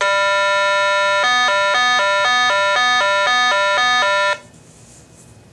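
RATH Smartphone 5 emergency phone's speaker sounding its keypad programming tones as Stop is held to exit program mode: one steady electronic tone for about a second, then a rapid two-tone warble for about three seconds that cuts off suddenly.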